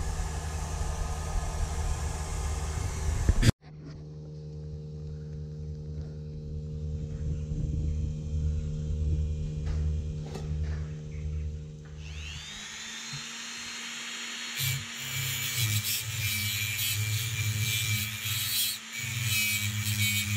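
A loud noise stops abruptly about three and a half seconds in, and steady low tones follow. About twelve seconds in, a small power grinder with a thin cut-off wheel spins up with a rising whine, then grinds against the steel with a harsh, high grinding noise.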